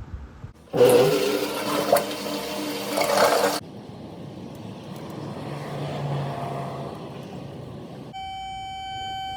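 Water rushing through a plumbing drain, loud for about three seconds, then dropping abruptly to a quieter flow. A steady electronic tone starts near the end.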